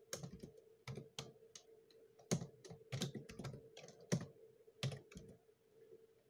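Typing on a computer keyboard: a dozen or so irregular keystrokes that stop a little after five seconds in.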